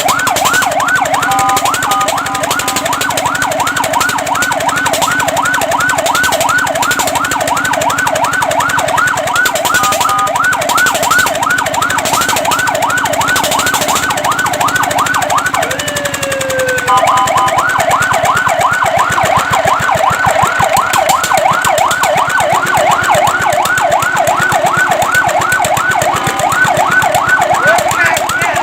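Fire truck siren sounding a rapid yelp, a quick rising-and-falling wail repeating several times a second. Near the middle it breaks off briefly into one falling tone, then the yelp starts again.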